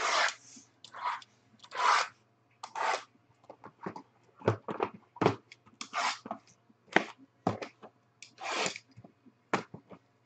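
Shrink-wrapped cardboard boxes of trading cards being handled and restacked: a dozen or so irregular crinkling, scraping rustles of plastic wrap and cardboard, over a faint low hum.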